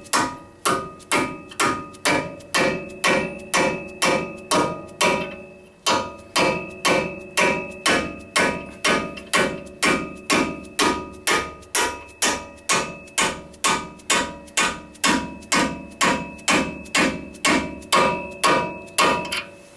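Hammer blows on a socket used as a driver, forcing an aluminum tie rod end and its misalignment spacers down onto a tight-fitting knuckle pin. The strikes are steady, about two and a half a second, and each one rings like metal. There is a short pause about five seconds in.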